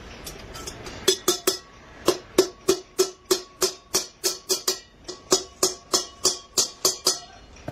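Hammer striking a copper pot, about three quick blows a second, each with a short metallic ring at the same pitch. The blows start about a second in and stop shortly before the end.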